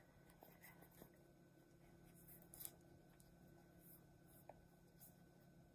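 Near silence: faint room hum with a few soft ticks and rustles as a small leather bag with metal hardware is turned over in the hands.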